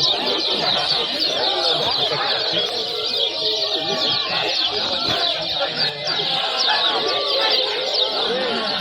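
Many kecial kuning (lemon-bellied white-eyes) chattering at once in a dense, unbroken chorus of rapid, high, quick-falling chirps. Slower, lower calls run underneath.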